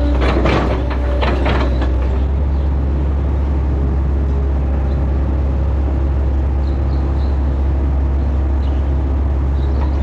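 Hitachi Zaxis 110 excavator's diesel engine running steadily with a deep hum, heard from the operator's seat. Irregular clatter in the first two seconds, then the engine runs on evenly.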